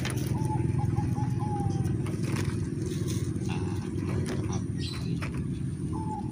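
A steady low engine drone from a nearby motor. A dove's short cooing phrase comes about half a second in and again near the end, with a few light clicks in between.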